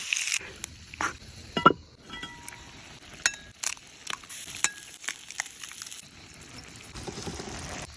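Metal cooking utensils and dishes clinking and knocking about a dozen times, some clinks ringing briefly, over a faint sizzle from the pan.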